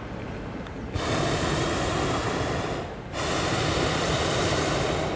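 Hot air balloon propane burner firing: a steady hissing rush that switches on sharply about a second in, cuts off for a moment near the three-second mark, and comes straight back on.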